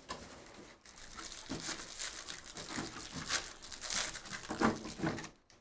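Foil wrapper of a 2020 Bowman baseball card pack being torn open and crinkled by hand, a run of dense crackling with a few louder crackles.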